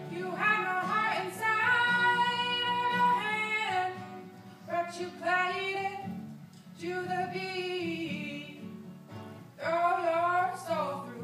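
A woman singing with acoustic guitar accompaniment, live in a large hall: phrases of long held, sliding notes broken by short pauses for breath.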